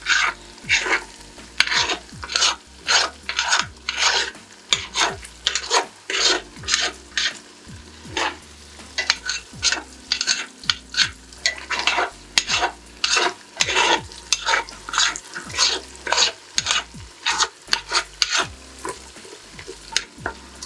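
A spoon scraping and stirring egusi (ground melon seed) paste as it fries in oil in a pot, about two strokes a second over a steady sizzle. The paste is kept turning constantly so it does not burn.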